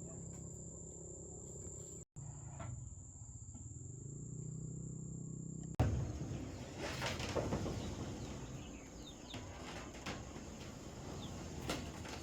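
Insects shrilling with a steady high-pitched drone, broken off abruptly twice. After about six seconds the background turns noisier, with a few sharp knocks and short bird chirps.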